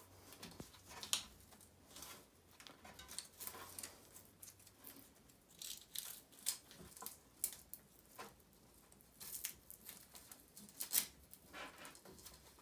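Velcro hook-and-loop mudguard straps being pulled through their buckles and pressed down, giving faint, irregular rasps and clicks of handling.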